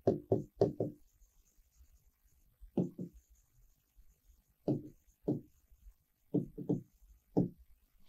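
A pen knocking against the writing board as words are written by hand. There are about a dozen short knocks in small groups: a quick run of four at the start, pairs near the middle, and another run of four near the end.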